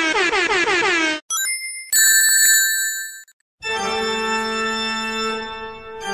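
Intro music and sound effects: a brief warbling, sweeping tone, then a few high ringing tones, and after a short break a held organ chord.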